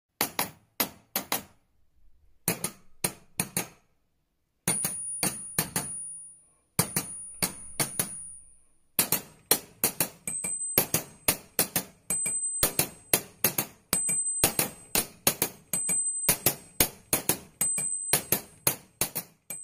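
Intro sound effects: a series of sharp metallic hits, in small clusters with short silent gaps at first, then a steady run of about three a second from about halfway. A thin high ringing tone sounds over several of the hits.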